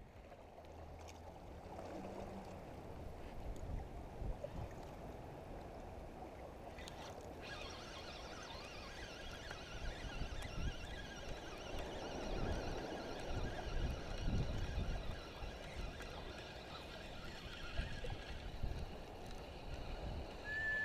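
Wind buffeting the microphone over lapping water, a steady rumbling hiss with gusts. From about seven seconds in, a steady high whine joins it as the spinning reel is cranked to bring in line. A short whistled note starts at the very end.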